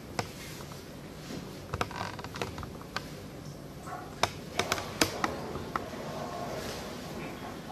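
Scattered light clicks and taps from a plastic water hose and funnel being handled, with the loudest few sharp ones about four to five seconds in.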